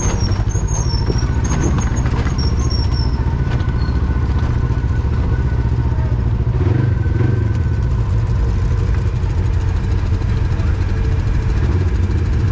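Off-road vehicle engine running steadily. Its pitch wavers briefly about seven seconds in.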